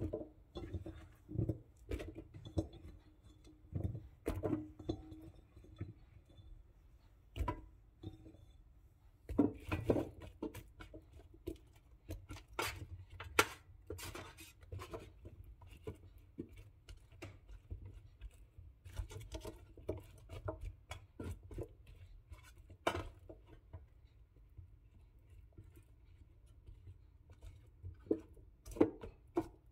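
Chopped vegetable pieces dropping into and being shifted around a Cosori air fryer basket: irregular light taps, knocks and clinks, a few at a time.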